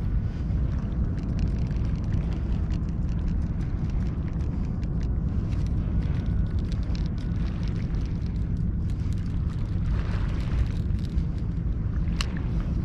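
Wind buffeting the camera's microphone: a steady low rumble, with scattered faint ticks and two sharper ones near the end.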